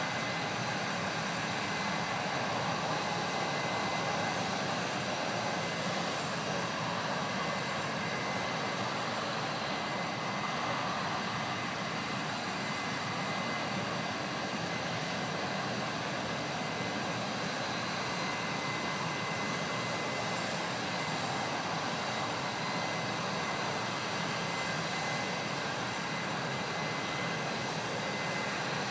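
Petrochemical plant flare stack burning off gas, a steady, even jet-like rush of noise with a thin high tone running over it.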